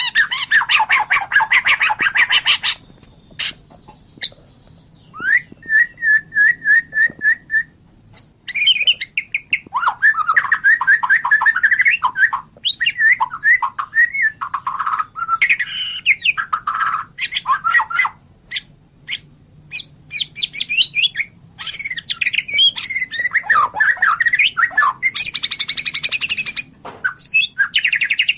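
White-rumped shama (murai batu) singing: a varied song of fast rattling trills, rapid repeated notes and clear whistles, with short pauses between phrases.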